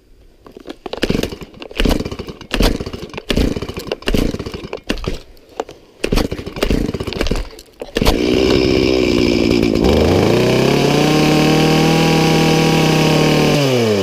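A small two-stroke chainsaw being pull-started: a series of short starter-cord pulls with the engine sputtering. About eight seconds in, the engine catches and runs. About two seconds later it is revved up to a steady high speed, and its pitch falls away near the end.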